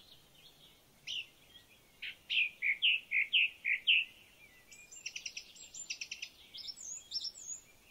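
Birds calling: a string of short whistled notes between about one and four seconds in, then a quick run of rapid chattering notes until near the end.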